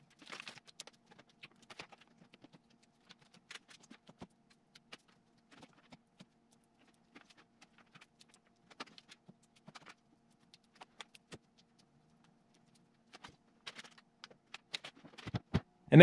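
Uncapping fork picking and scraping wax cappings off a honeycomb frame: faint, irregular small clicks and scratches, over a faint steady hum.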